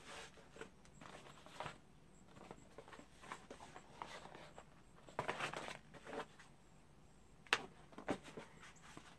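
Cardboard packaging being handled: faint scattered rustles and light knocks, with a burst of rustling about five seconds in and a single sharp click a couple of seconds later.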